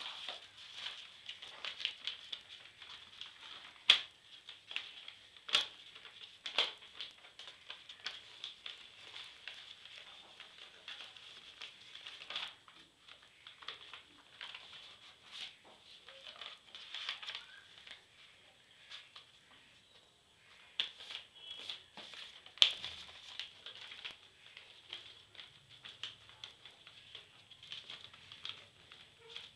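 Sheets of white paper being handled and folded: irregular rustling and crinkling broken by crisp snaps, with a couple of louder ones.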